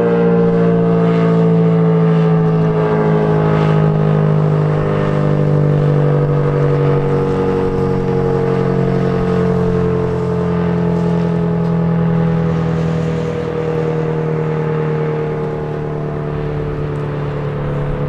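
ACA Cyclone 120 outdoor warning siren sounding its steady alert tone, loud, with its pitch sinking slowly and a lower steady drone underneath. The siren is reverse-wired, yet still pretty loud.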